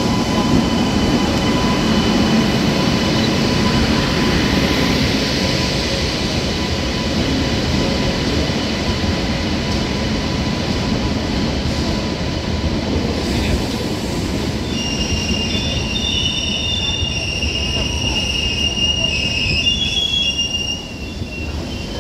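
Indian Railways express train hauled by a WAP-7 electric locomotive, rolling slowly alongside a station platform as it comes in to stop. A continuous rumble of wheels and coaches, joined about two-thirds of the way in by high-pitched wheel and brake squeal as the train slows.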